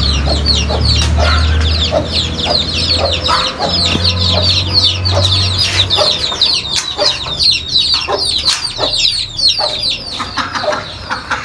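Chickens clucking over a dense chorus of quick, high, falling chirps from many small birds. A low steady hum runs underneath for about the first six seconds, then stops.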